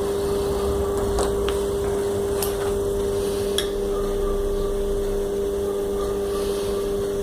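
A steady low hum with a few light clicks and taps from handling small parts, the counterweights being glued onto an air-conditioner blower turbine.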